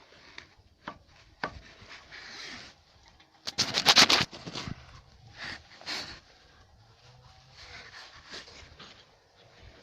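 Handling noise at the opened engine: scattered clicks, knocks and rubbing of hands and metal parts, with a loud rattling cluster about four seconds in.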